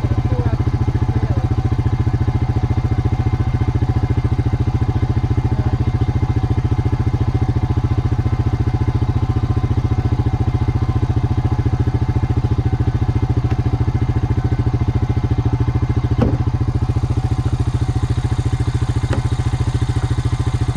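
ATV engine idling steadily, with a few light knocks near the end.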